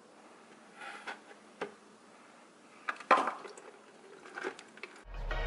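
Metal clinks and scrapes of a wrench working the oil drain plug under the car, a few scattered knocks with the loudest clatter about three seconds in. Background music comes in just before the end.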